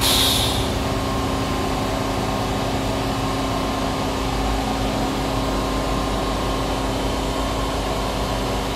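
Hem Saw vertical bandsaw running steadily: a constant machine hum with a few steady tones, and a short hiss right at the start.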